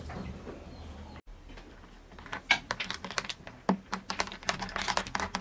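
A metal spoon stirring a milkshake in a tall glass, clinking against the glass in quick, irregular clicks from about two seconds in.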